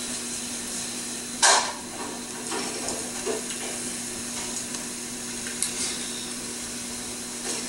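A man drinking from an aluminium can of flavoured malt beverage, with a short, loud rush of noise about one and a half seconds in and a few fainter ones after. All of it sits over a steady hiss and a low hum.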